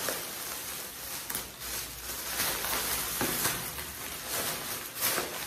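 Thin plastic shopping bag rustling and crinkling as it is handled and opened, with many small crackles throughout.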